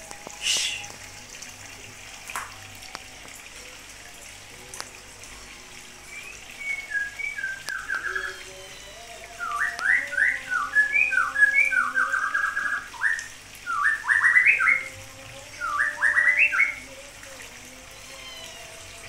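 A small songbird singing phrases of quick, sweeping chirps, starting about six seconds in, loudest and busiest in the middle, and stopping a couple of seconds before the end.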